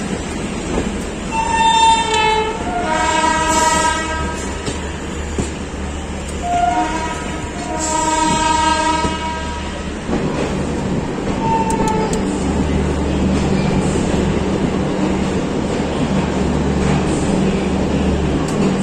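Train horns blowing in several long blasts over the running rumble of a moving Indian Railways passenger train; the blasts come in the first half, with a short one around twelve seconds in. After that a steady low hum of the running train carries on.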